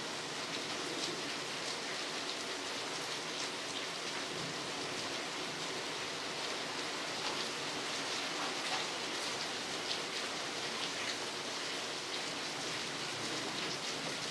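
Steady rain falling, with many small sharp drop hits throughout.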